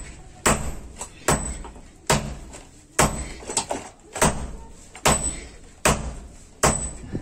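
Sledgehammer blows on a red-hot iron bar held on a small anvil during hand forging, about one heavy strike every 0.8 s. Some strikes leave a brief high ring.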